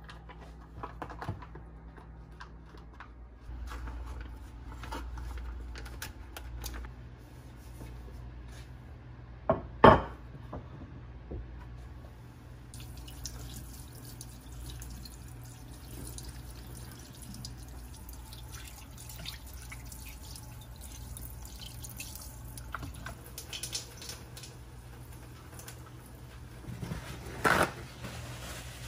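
Plastic meat packaging crackling as it is cut open with kitchen scissors in a stainless steel sink, with a loud knock about ten seconds in. From about halfway the kitchen tap runs steadily as raw chicken is rinsed under it, and a second thump comes near the end.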